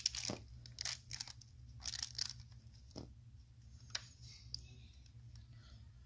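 LEGO plastic bricks clicking and clattering as an assembled puzzle box is handled and pressed together: a quick run of sharp clicks in the first few seconds, thinning out after about four seconds, over a faint low hum.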